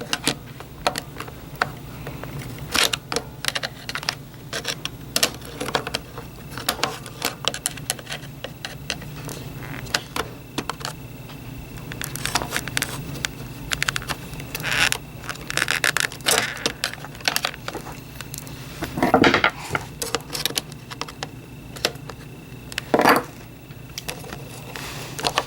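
Irregular clicking and rattling of small plastic and metal parts handled at close range: a dogbone, its retaining screw and the RC truck's drivetrain parts being worked by hand. There are a few scraping stretches in the middle and two louder knocks in the last third.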